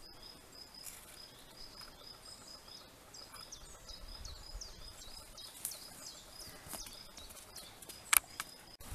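Quiet woodland ambience with small birds chirping and a high note repeated over and over, broken by two sharp clicks, the louder one near the end.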